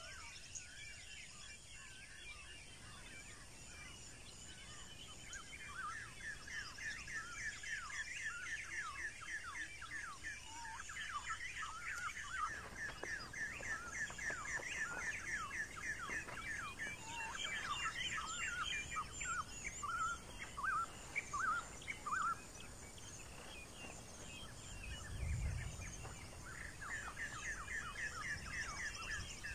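Wild birds calling in a busy chorus of short, quickly repeated chirps that builds up and comes and goes. A brief low thud near the end.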